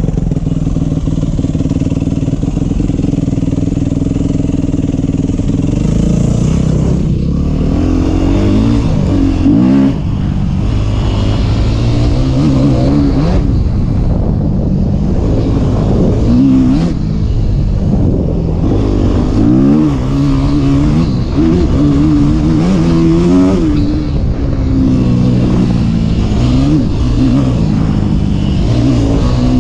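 Yamaha YZ250F dirt bike's single-cylinder four-stroke engine under way, running steadily for the first several seconds, then revving up and down again and again as the throttle is opened and closed.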